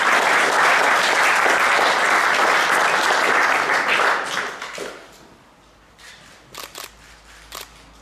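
Audience applauding, dying away about four to five seconds in, followed by a few sharp clicks.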